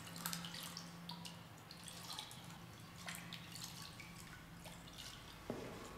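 Water dripping in a tiled washroom: scattered small drips over a steady low hum, with a sharper knock about five and a half seconds in.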